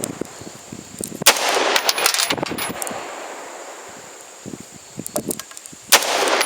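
AR-15 rifle shots fired one at a time: a loud shot about a second in and another near the end, each trailing off in an echo, with a fainter report right at the start.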